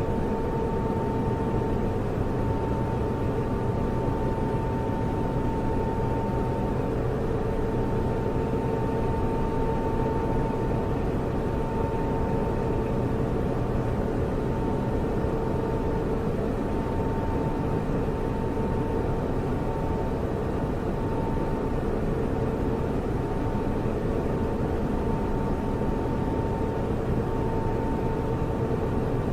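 Server cooling fans running steadily: a broad whooshing hum with a constant whine held over it.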